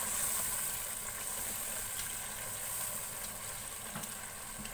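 Beef, yogurt and fried onions sizzling in hot ghee in a large pot: a steady frying hiss as the yogurt's liquid cooks off.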